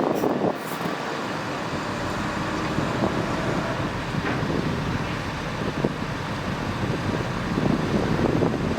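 Heavy diesel earthmoving machinery running steadily, with short rattling knocks in the first moment and again near the end.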